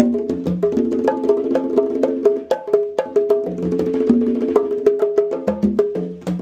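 Conga drums played in a fast, busy rhythm, the strokes ringing at several different pitches.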